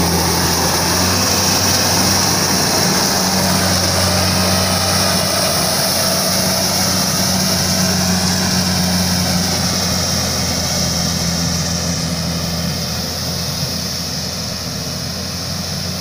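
Rice combine harvester running steadily as it cuts and threshes standing rice, a constant engine drone with a hiss over it, growing a little quieter near the end as the machine moves away.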